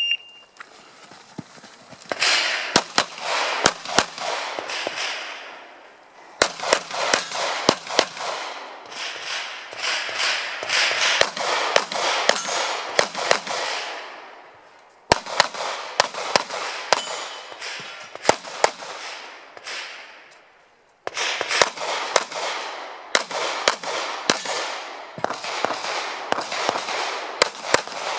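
A shot timer's short electronic beep, then a 9mm HK P30L pistol fired in fast strings of shots through an IPSC stage, each shot trailing an echo. The firing breaks off briefly about halfway through and again about two-thirds through.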